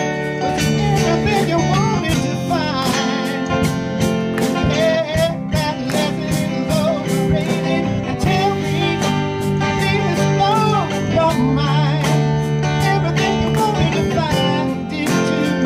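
Live band playing a pop-rock song: male lead vocal over keyboard, electric guitar and a drum kit keeping a steady beat.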